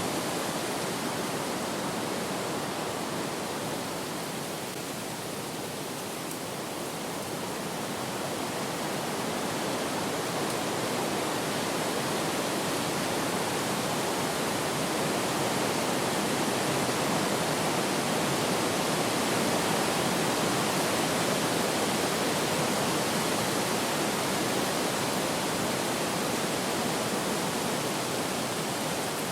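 Steady rushing wind, easing a little about five seconds in and then swelling back up.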